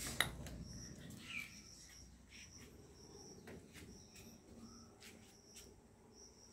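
Faint insect chirping: short high chirps repeating about every half second, with gaps. A sharp click sounds about a quarter second in.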